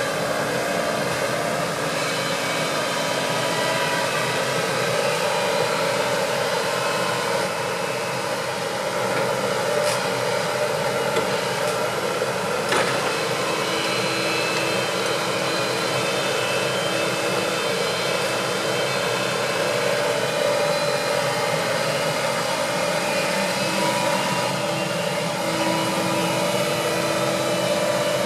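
Hitachi compact tracked excavator's diesel engine running steadily under load, with a hydraulic whine that shifts in pitch as the boom and grapple work. Two sharp knocks, about ten and thirteen seconds in.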